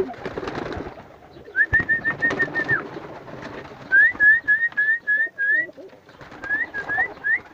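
Birds in a pigeon loft: three runs of short high peeps, about five a second, the middle run rising note by note. A rustle of handling comes first.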